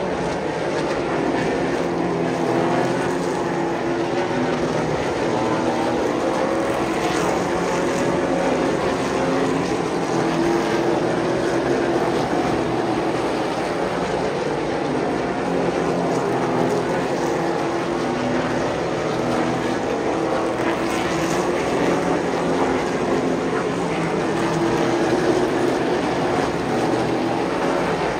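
Super late model stock cars running on an oval track: the V8 engines of the field make a continuous, steady engine drone that wavers slightly in pitch.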